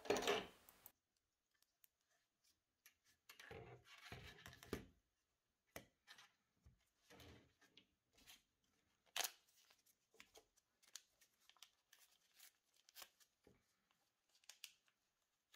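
Faint handling sounds from gloved hands working on an LCD screen and its glass plate: scattered soft clicks and short rustles, a small cluster of them about four seconds in and a sharper click about nine seconds in.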